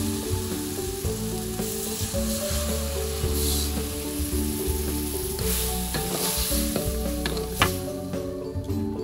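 Chili spice paste sizzling and hissing in a hot aluminium wok as water is added, with the metal spatula stirring and clicking against the pan. The hiss swells twice and steam rises. Soft background music plays underneath.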